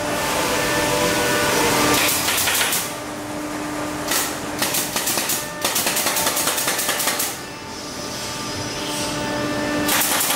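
Pneumatic nail gun firing into a wooden sofa frame in quick runs of sharp shots, with a longer rapid string of shots in the middle and short pauses between runs.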